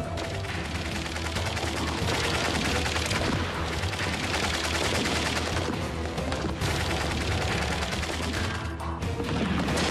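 Gunfire in a firefight: many rapid, overlapping shots in a dense, continuous volley, over a low music bed.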